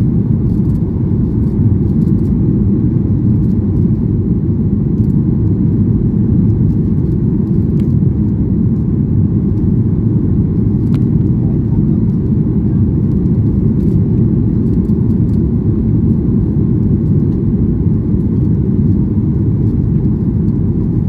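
Steady low roar of a Boeing 737 MAX 8's CFM LEAP-1B engines and rushing airflow at climb power, heard inside the passenger cabin.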